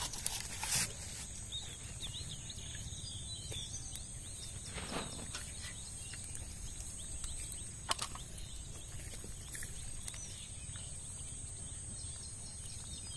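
Outdoor field ambience: a steady low rumble and a steady high hiss, with faint bird chirps and a few soft knocks from handling or footsteps.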